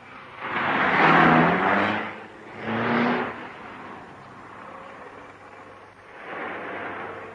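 Road vehicles passing by, heard as three swells of engine and tyre noise: a loud pass about a second in, a shorter one about three seconds in, and a fainter one near the end.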